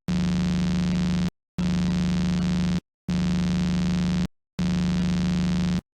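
Electronic buzzer tone sounding in four long pulses, each over a second long, with short silent gaps between them.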